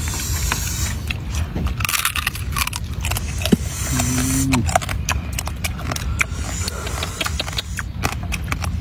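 Close-up cracking and crunching of a raw crustacean's shell as it is chewed and picked apart by hand: many short sharp clicks over a steady low rumble. A brief hummed 'mm' from the eater about four seconds in.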